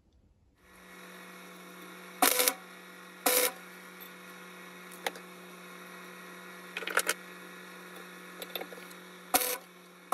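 Steady electrical hum of a gasless MIG welding setup, broken by a handful of short tack welds joining steel Allen keys and bolts into a wing frame.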